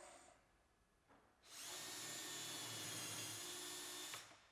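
Cordless drill running steadily for nearly three seconds, boring a hole through a sleeve drill guide of the Hettich Accura drilling jig into a cabinet side panel, then stopping abruptly. At the start the jig's template is slid into position, with a brief rub and a small click.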